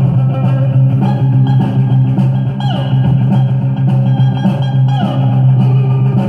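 Mid-1960s garage surf rock playing from a 45 rpm vinyl single on a turntable, with drums and electric guitar.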